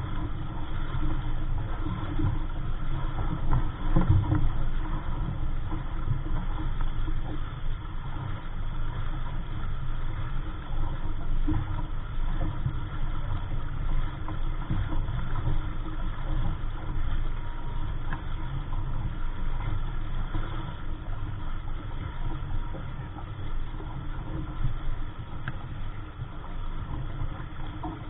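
Wind buffeting the microphone aboard a small sailboat: a steady low rumble that swells and drops with the gusts.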